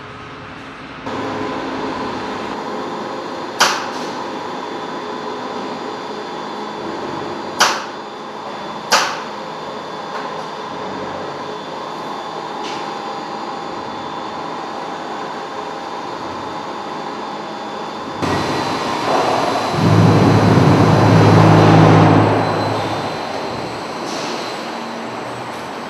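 Concrete plant machinery running: an overhead concrete transport bucket drives along its track with a steady mechanical run and three sharp metallic knocks. Later, concrete mix rushes out of a hopper gate into a bin, with a low hum under the pour.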